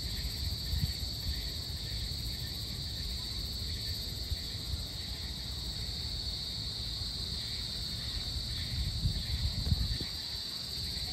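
Dusk chorus of crickets and other insects: a steady, high-pitched shrill that never lets up. Underneath it runs a low rumble that swells briefly about nine to ten seconds in.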